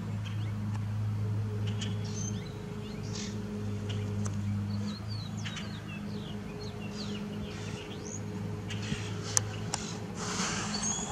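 Small birds chirping, many short calls, over a steady low hum. A couple of sharp clicks come near the end, followed by a rise of hiss.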